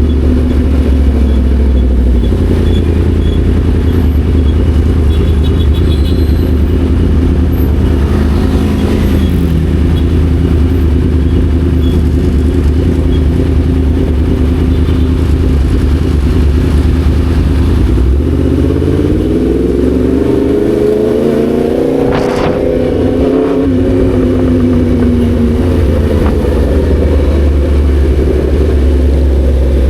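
Yamaha MT-10 SP's crossplane inline-four engine running while riding at a steady pace. About two-thirds of the way through, the engine note rises and then falls back over several seconds, with a brief sharp sound at its peak.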